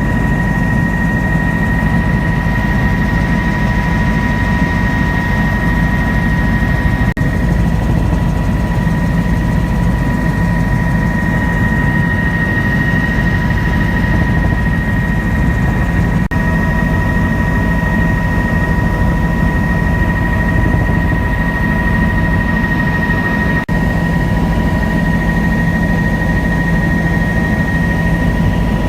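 Helicopter running steadily: a loud, unbroken deep rumble of rotor and engine with a steady high whine on top.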